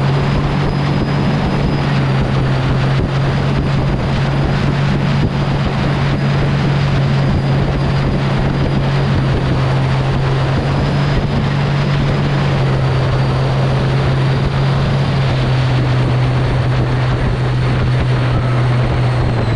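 Mini jet boat under way: its engine running steadily at speed with a low drone, a thin high whine of the jet drive over it, and the rush of water and wind.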